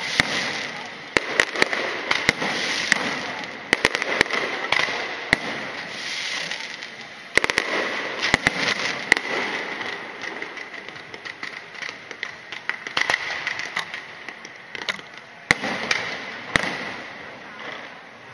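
Fireworks shells bursting overhead: irregular sharp bangs, some single and some in quick clusters, with crackling between them.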